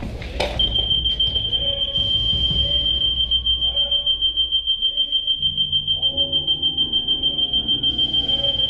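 Electronic airsoft game prop sounding one long, steady, high-pitched beep like a smoke alarm. It starts just under a second in, right after a sharp knock.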